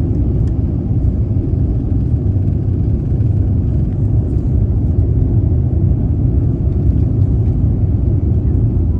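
Steady low rumble of an Airbus A350-900 cabin in flight, even and unbroken throughout.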